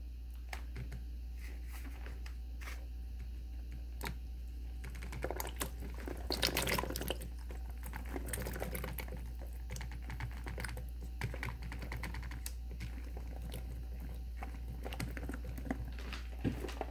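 Blueberries dropping from a plastic clamshell into a plastic colander: scattered light clicks and rattles as they land, busiest about six to seven seconds in.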